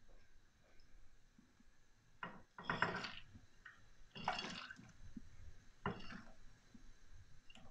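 Frozen peas, broccoli and cauliflower florets tipped from a bowl into a saucepan of water: splashing and the clatter of the frozen pieces, in four short bursts, the loudest about three seconds in.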